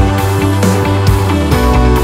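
Background music with instruments over a steady beat.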